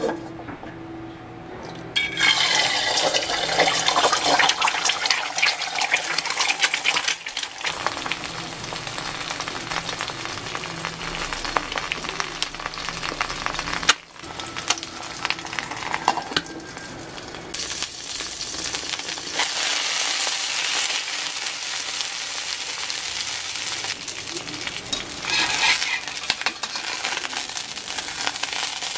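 Egg frying in hot oil in a wok: dense sizzling and crackling that starts suddenly about two seconds in, as the egg goes into the oil, and carries on with a brief break about halfway.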